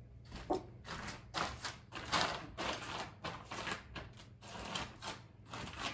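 Footsteps on a hardwood floor: an irregular run of soft taps and scuffs, about two or three a second.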